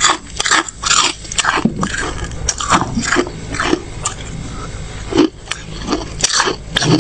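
Person biting and chewing crunchy freezer frost: a fast, irregular series of crisp crunches, several a second.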